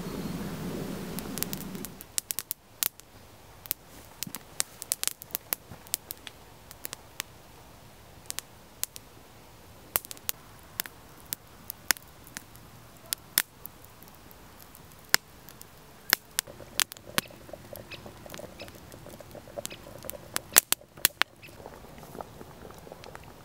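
Wood campfire crackling: irregular sharp pops and snaps over a quiet background, after a low rustling noise that stops about two seconds in.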